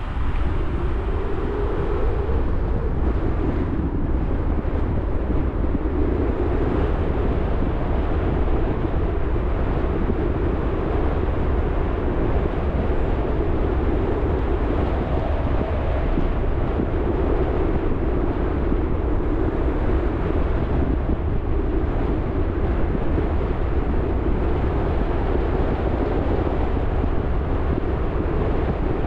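Steady road and wind noise of a car driving, a constant low rumble with no engine revving or other distinct events.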